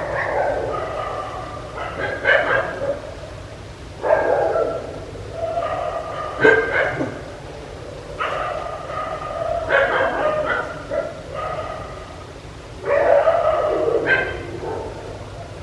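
Dog barking in repeated bouts, a short cluster of barks and yips about every two seconds.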